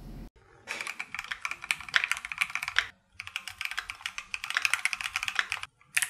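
Fast typing on a Keychron Q1 mechanical keyboard with an aluminium plate, Gateron G Phantom Blue switches and PBT keycaps: two quick runs of key clicks with a short pause about halfway through.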